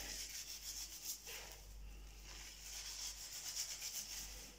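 Hands rubbing shampoo into long wet hair: faint, uneven rubbing with soft irregular strokes.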